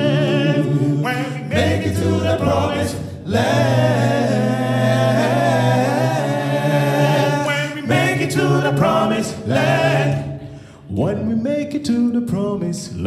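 Male a cappella gospel group singing in close harmony, with a low bass part held under the upper voices and no instruments. The singing drops briefly about eleven seconds in, then comes back.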